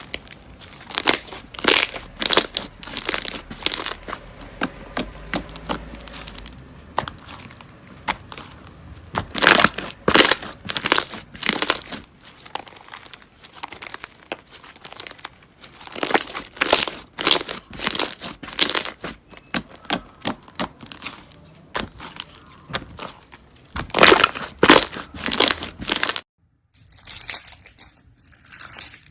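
Slime being squeezed and pressed by hand, giving repeated bursts of crackling and popping from air pockets in the slime. Near the end it stops for a moment, then goes on more softly.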